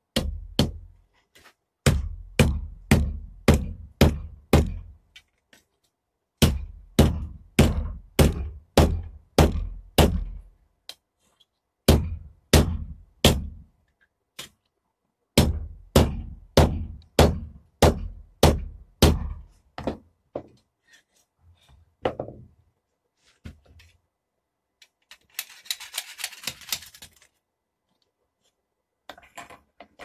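Hand hammer striking hot steel on an anvil while folding a knife handle: sharp blows about two a second, in runs of five to nine with short pauses between. Near the end come a few lighter knocks and a brief rasping noise.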